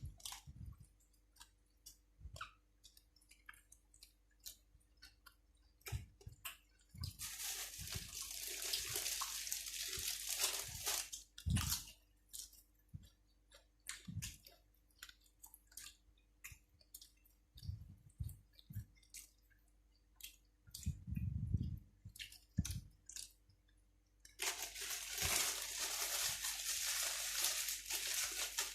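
A person chewing and crunching mouthfuls of food close to the microphone, with many small wet clicks and crunches. Twice the sound thickens into several seconds of dense, hissing crunching.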